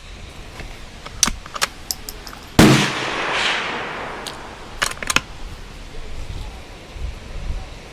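A .22 long rifle shot from a bolt-action target rifle: one sharp report about a third of the way in, with an echo fading over a second or so. Short metallic clicks come before and after it, typical of the bolt being worked.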